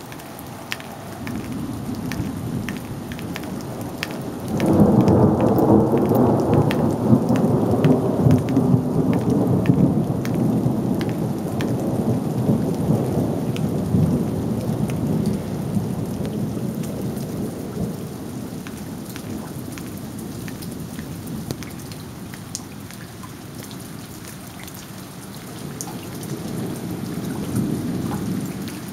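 Thunderstorm: rain falling steadily with the ticks of individual drops, and a long roll of thunder that breaks in suddenly about four seconds in, rumbles for over ten seconds and dies away. A second, softer rumble swells near the end.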